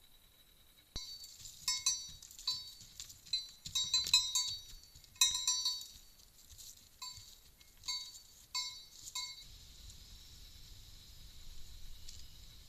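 Small metal bell or bell-like clinking, struck about fourteen times at irregular intervals, each strike short and ringing, stopping about nine and a half seconds in.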